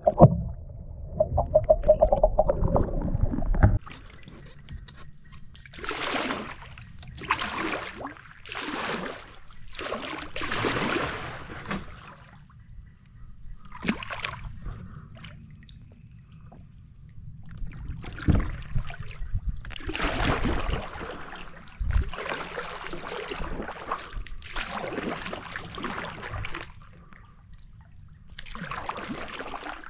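Kayak paddle strokes dipping and splashing in the water, a swish about every second, in runs with short pauses between them.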